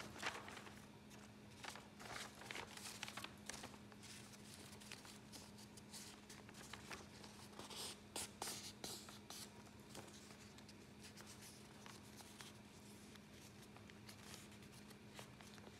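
Chemex paper filter rustling and crinkling as it is unfolded and folded by hand, in clusters of soft crackles that are busiest in the first half and thin out towards the end. A faint steady low hum runs underneath.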